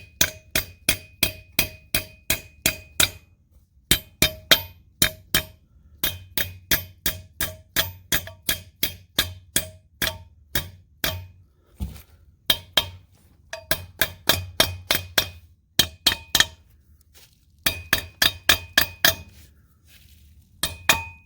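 Rapid hammer blows on a steel Red Head wedge anchor, driving it into a drilled hole in concrete. The blows come about four or five a second in runs of several seconds, each with a short metallic ring, and break off briefly between runs.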